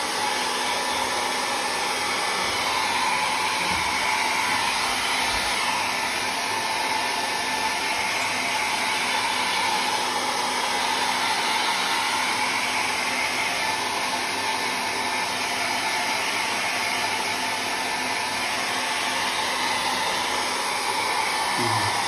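Handheld hair dryer running steadily, an even blowing rush with a faint hum in it, as it dries wet ink on rice paper.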